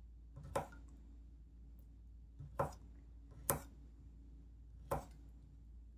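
Chef's knife slicing dried Chinese sausage on a wooden cutting board, the blade knocking the board four times at uneven intervals.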